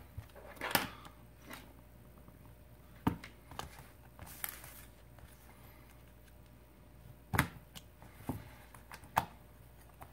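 Scattered sharp clicks and light knocks, about seven in all, with one brief scrape near the middle, as a metal pry blade and fingers work at the clipped-down edge of an LG G5 smartphone's display to pop it loose.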